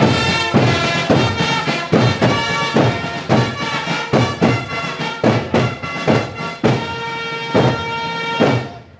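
Herald trumpets (chiarine) playing a held fanfare over a steady drum beat, the drums striking about twice a second; the music stops near the end.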